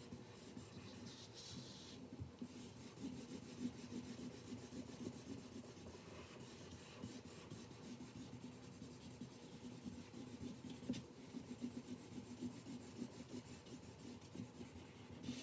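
Faint rubbing of a felt-tip marker on paper, in quick repeated back-and-forth strokes as a large area is colored in.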